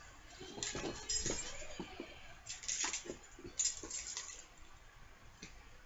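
Plastic board-game miniatures and their packaging being handled: crinkling and light clicking in short bursts, three or four times.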